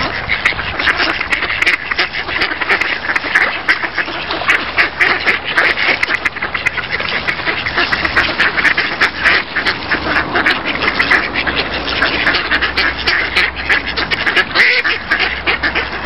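A flock of ducks quacking without pause, many calls overlapping.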